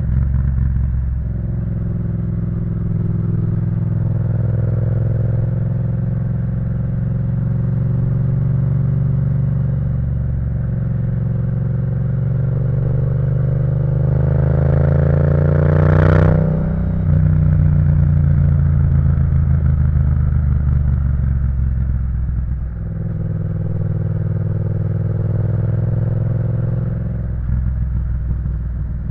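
Yamaha MT-07's 689 cc parallel-twin engine, through an Akrapovic full exhaust system, running under riding load. About halfway through, the revs climb steadily to a high peak, then drop sharply with a gear change. After that it carries on at steadier revs, with a couple of brief dips in level.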